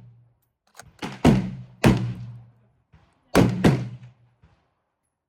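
Rifle shots at a shooting range: sharp, loud reports coming in close pairs about two seconds apart, each bang followed within half a second by another.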